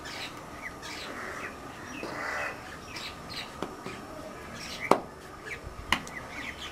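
Birds chirping and calling, with two sharp clicks about a second apart, a little past the middle, that are the loudest sounds.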